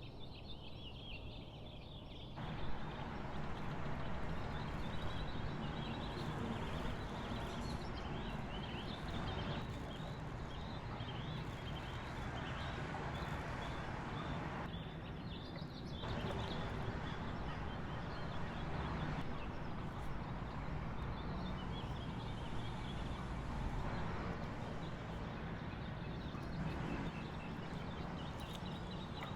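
Birds chirping over a steady background hiss, with many short high chirps throughout.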